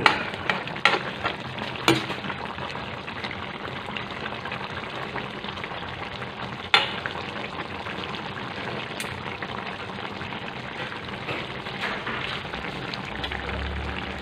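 Chicken binagoongan bubbling and sizzling steadily in its sauce in a metal pan, left to cook down a little. A few sharp clicks of a ladle against the pan sound in the first two seconds, and once or twice more later on.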